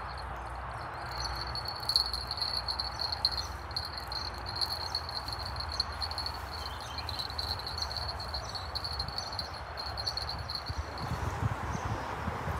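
Steady, high-pitched insect chirring, like crickets, over a constant hiss and low rumble. A few dull low thumps come near the end.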